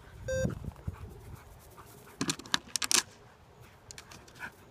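One short electronic beep from the Mini Educator e-collar's sound box, marking a tap of low-level stimulation that tells the confused dog he is going the wrong way. About two seconds in, a quick run of sharp clicks and the dog's panting.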